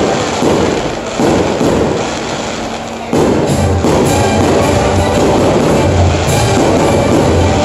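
Loud music with a drum beat accompanying a fireworks display, with the bursts of the fireworks mixed in; the sound jumps up suddenly about a second in and again about three seconds in.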